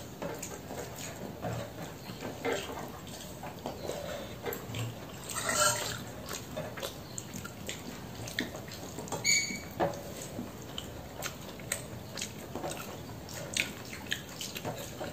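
Fingers squishing and mixing rice with curry on a steel plate: soft wet clicks and squelches, with a brief louder rustle about six seconds in and a short high squeak about nine seconds in.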